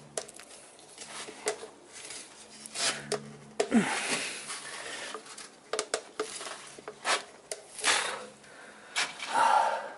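Irregular knocks, clicks and scraping of hands working the threaded cap of a diesel fuel filter housing clamped in a metal bench vise, with a short falling squeak a few seconds in.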